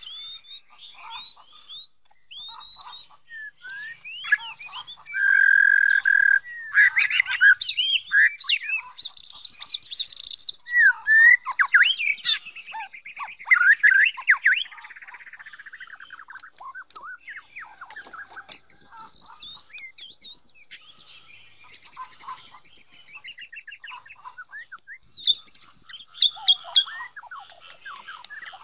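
White-rumped shama song: a varied run of loud whistled phrases, sweeps and trills, with one long held whistle about five seconds in, giving way after about fifteen seconds to softer, busier chattering calls.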